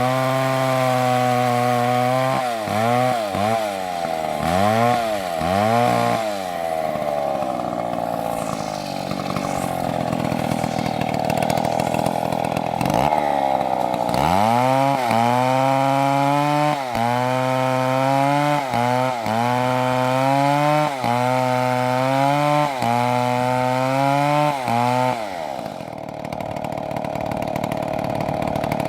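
Two-stroke chainsaw engine revving up and easing off again and again, then held at high revs for a long stretch with brief dips in speed about once a second, settling to a steadier speed near the end.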